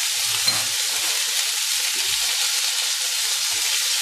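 Pork loin steak and freshly added red onion rings sizzling steadily in hot oil in a stainless steel frying pan, with a few faint knocks in the first half.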